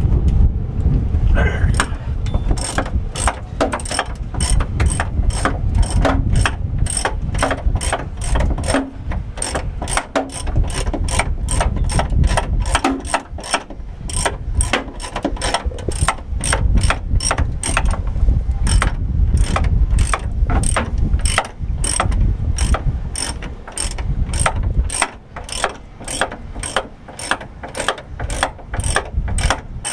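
Hand ratchet wrench clicking steadily, about two clicks a second, as a fine-thread bolt on the A-26 Invader's nose landing gear is turned, over a low rumble.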